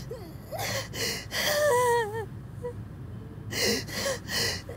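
A woman sobbing: sharp, gasping in-breaths, with a wavering, broken cry in the middle, over a steady low background hum.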